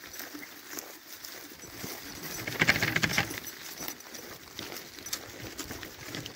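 Footsteps on a path of dry grass and weeds, with a louder rustling scuff about halfway through.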